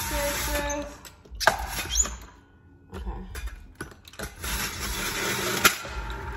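Electric juicer running and grinding produce fed into it, in several surges of harsh noise with brief lulls between them.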